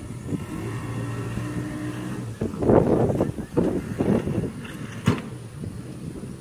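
Off-road vehicle engine running steadily, with a louder, rougher stretch in the middle and a single sharp knock about five seconds in.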